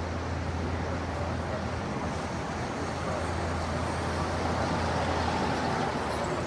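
Light city ambience: a steady rumble of road traffic with a low hum underneath, swelling a little about four to five seconds in as traffic builds or passes.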